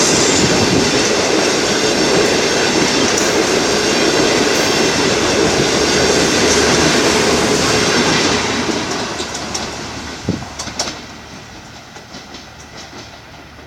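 Passenger coaches rolling past at speed, their wheels rushing and rumbling on the rails. After about eight seconds the last coach goes by and the sound fades away, with a few wheel clacks over the rail joints as it recedes.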